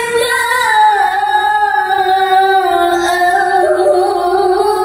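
A man reciting the Quran in melodic tilawah style, holding one long sung note. It glides down about a second in, then carries on with small wavering ornaments in pitch.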